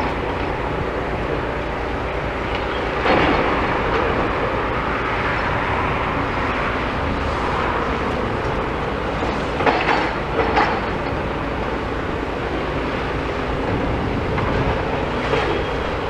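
Demolition machines at work: a steady engine rumble with several sharp knocks and crunches of concrete and steel rebar being broken up, the loudest about three seconds in and twice close together near ten seconds.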